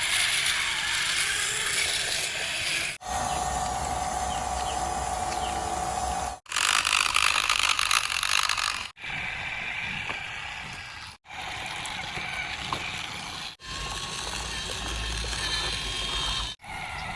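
A string of short bursts of mechanical noise, each cut off abruptly after two to three seconds; one burst carries a steady whine.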